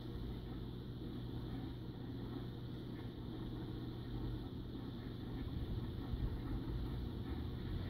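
Marine reef aquarium's water pump running with a steady low hum.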